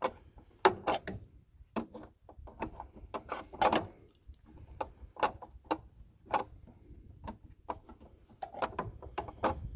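Irregular clicks and taps of an adjustable wrench and a bolt being worked out of the throttle control plate on a garden tractor's plastic dash, with a few louder knocks among them.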